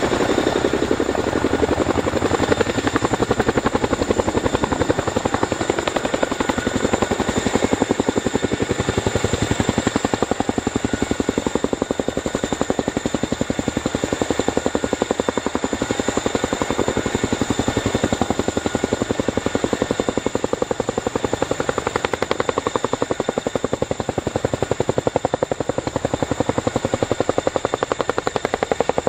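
Boeing CH-47 Chinook tandem-rotor helicopter hovering: a rapid, steady beat from its two rotors, with a high turbine whine over it.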